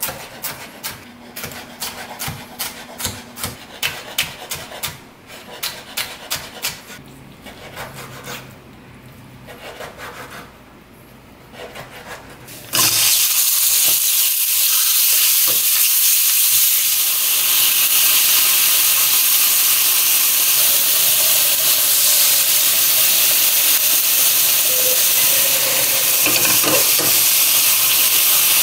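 Chef's knife julienning red bell pepper on a bamboo cutting board: a quick run of sharp taps on the wood. About thirteen seconds in, a loud steady sizzle starts abruptly as chicken breast strips fry in hot oil in a nonstick wok.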